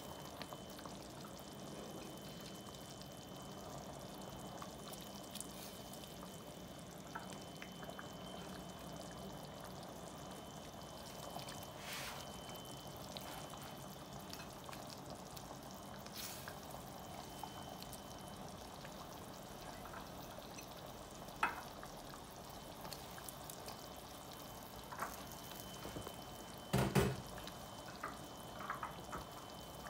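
Faint, steady bubbling and hiss of seafood boil sauce simmering in a stainless steel pot on a gas stove, with a few small clicks and a couple of louder knocks near the end.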